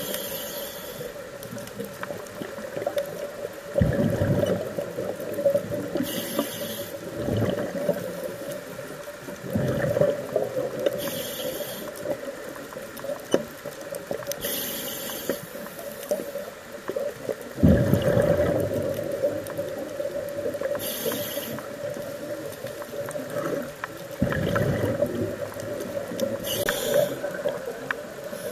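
Scuba regulator breathing underwater: a short hiss on each inhale about every five seconds, each followed by the bubbling rumble of the exhaled breath, over a steady hum.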